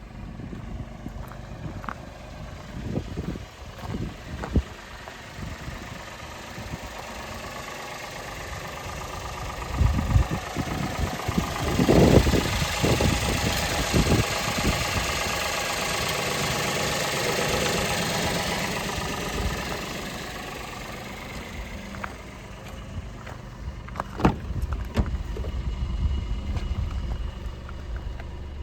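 Toyota Vitz's 1KR 1.0-litre three-cylinder petrol engine running, with scattered knocks and clicks. It grows louder for several seconds in the middle, then settles again.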